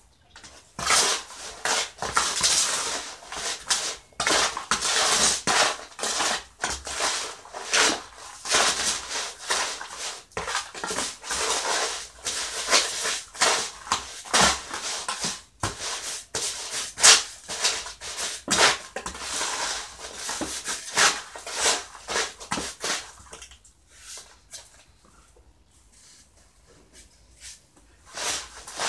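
Gritty scraping and crunching of a wet cement-and-gravel mix being stirred and scooped by hand in a plastic basin. It is busy and continuous for about twenty seconds, then goes mostly quiet with one short burst near the end.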